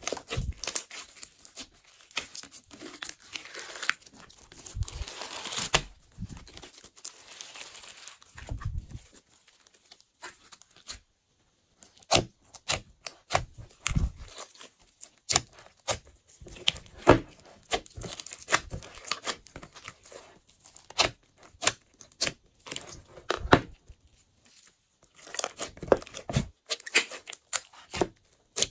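Hands squeezing, stretching and kneading glossy slime in a glass dish: a dense, irregular run of sticky pops, crackles and squelches, with a short pause about ten seconds in.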